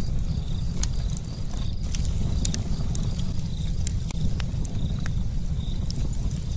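Wood fire burning with a steady low rumble and scattered sharp crackles and pops. Crickets chirp in short high repeated trills.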